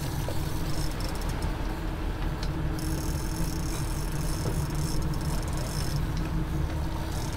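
Boat engine running steadily under wind and water rush, with a big-game fishing reel's drag buzzing as a hooked yellowfin tuna runs line off it, strongest from about three to six seconds in.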